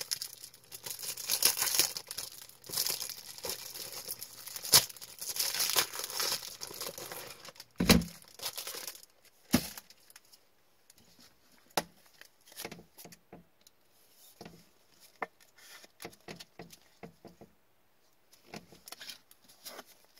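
Crinkling and tearing of a trading-card pack wrapper being opened, lasting about nine seconds. Then come a couple of thumps and scattered light clicks and taps as the cards are handled.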